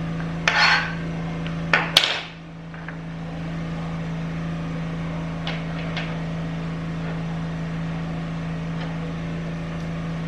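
Finely chopped onion being scraped from a board into a bowl: a few scrapes and knocks in the first two seconds, then only a steady low hum.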